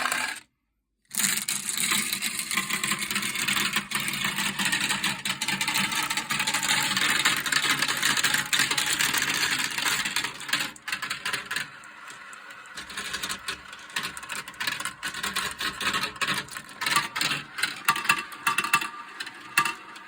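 Many marbles rolling and clattering through a marble run's spiral funnel bowls: a dense, continuous rattle of rolling and clicking for about the first ten seconds, thinning to scattered separate clicks and clacks later. The sound drops out completely for about half a second just after the start.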